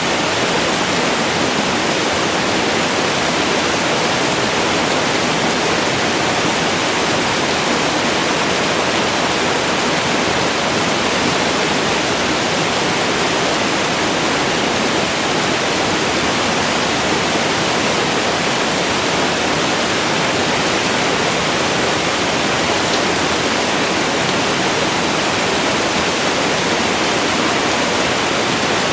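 Waterfall: a steady, unbroken rush of falling water, even and unchanging throughout.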